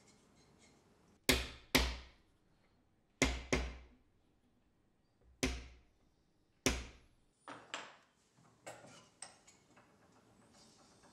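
Small metal-headed hammer striking a wooden block held against the corner joint of a thin wooden frame, knocking the joint together. Sharp knocks, mostly in pairs: six loud ones, then four lighter taps near the end.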